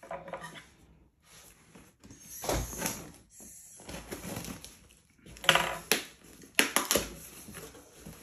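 Packing tape being picked at and ripped off a cardboard shipping box by hand, with the cardboard rustling and scraping, in several short bursts.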